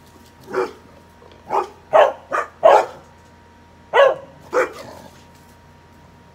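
A dog barking at a zombie animatronic it is frightened of: about seven short barks, five in quick succession in the first three seconds, then two more about four seconds in.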